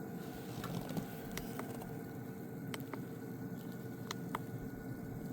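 Footsteps crunching and squishing in snow, a scatter of small sharp clicks, over a steady low mechanical hum.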